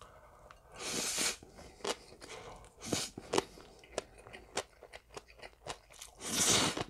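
Close-miked slurping and chewing of spicy Korean mixed noodles (bibim-guksu): three slurps, about a second in, around three seconds and a longer one near the end, with wet chewing clicks and smacks between.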